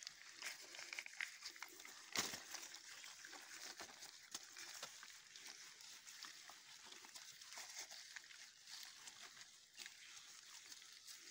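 Faint outdoor background hiss with scattered light clicks and rustles, and one sharper click about two seconds in.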